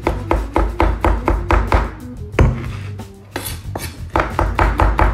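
Chef's knife rapidly chopping soft olives on a wooden cutting board, about four strokes a second. The chopping eases to a single hard stroke and a short lull about halfway through, then resumes at the same pace.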